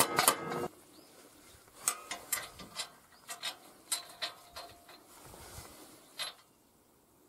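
Hammer blows on a steel pin against the excavator's rusty undercarriage at the start, the metal ringing briefly. Then a run of light metallic clicks and knocks as the steel parts are handled and fitted, stopping about six seconds in.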